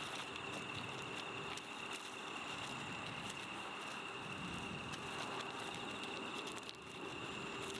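Gravel crackling and scraping as a corgi rubs its face and body along the stones, with scattered small clicks, over a steady high insect drone.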